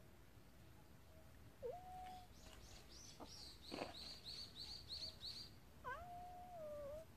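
Cat meowing twice: a short meow, then a longer drawn-out one near the end. A rapid run of high, evenly repeated chirps sounds in between.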